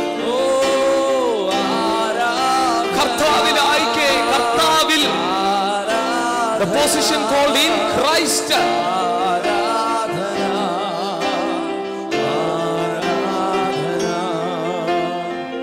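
Two men singing a Christian worship song, with long held notes and a wavering vibrato, over steady sustained chords from a Yamaha PSR-SX900 arranger keyboard.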